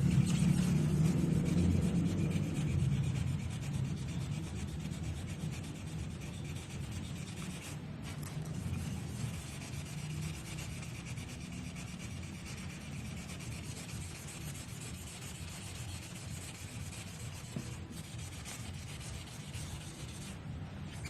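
Sandpaper rubbing over a powder-coated finish in a steady, even sanding sound. A louder low hum dies away over the first few seconds.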